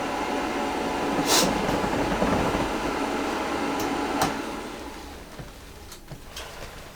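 Steady mechanical rumble with a hum and a couple of sharp clicks, dropping away to a much quieter background after about four seconds.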